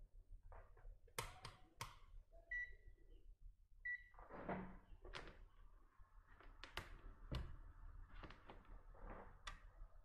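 Faint clicks, then two short electronic beeps a second and a half apart from a digital multimeter, followed by scattered clicks and rustling as the multimeter test leads are handled.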